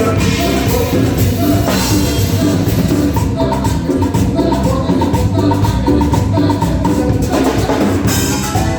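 Live band playing an upbeat Latin dance tune: drum kit and percussion keeping a steady beat under short, repeated melodic notes.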